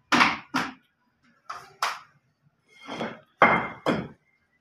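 Bricks knocking against each other and being set down on a plastic stool: a series of about seven sharp knocks, several in quick pairs.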